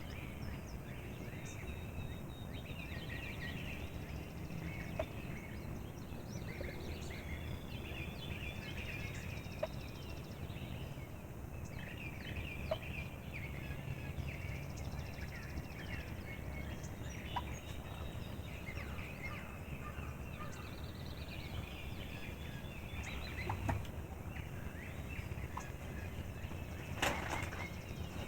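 Wild turkey gobblers gobbling several times, mixed with chirping songbirds, over a steady low rumble. A brief sharp noise comes near the end.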